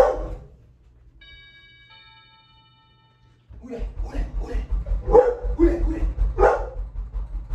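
A dog barking, a run of about six loud barks from about halfway in, over a low rhythmic thumping.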